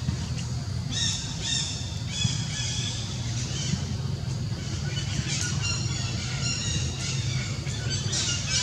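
Short, high-pitched squeaking animal calls repeated in quick clusters, over a steady low hum.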